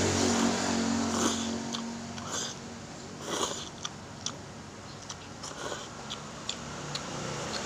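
A person slurping and chewing chicken noodles close to the microphone, with light clicks of a metal fork and spoon against a bowl.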